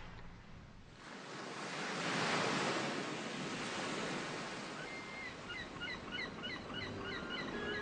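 Sea surf washing onto a beach, swelling about two seconds in. Short repeated bird calls begin over it a few seconds later.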